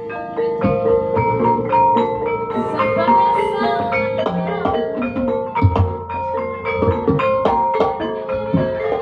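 Live Javanese gamelan music: bronze bonang kettle gongs and metallophones ring out a quick run of struck notes over steady drum strokes.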